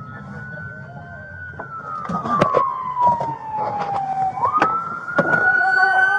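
Police car siren wailing: one slow fall in pitch, then a quick rise about four and a half seconds in, held high. Several sharp knocks and rattles in the middle, from the body-worn camera being jostled as the wearer moves.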